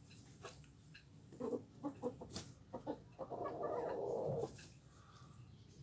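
Chickens clucking: a quick run of short clucks, then one loud, harsh call held for just over a second.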